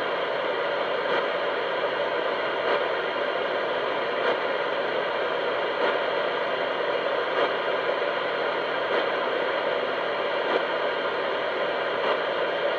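CB radio receiver hissing: steady static from the speaker with no station coming through, the high noise level that is drowning out the reply.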